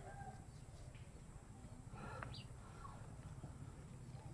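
Quiet background with a steady low rumble and a bird chirping faintly about two seconds in.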